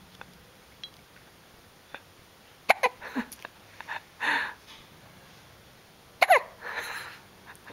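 Two hiccups from someone asleep, about three and a half seconds apart. Each is a sharp, squeaky hic followed by a soft breath.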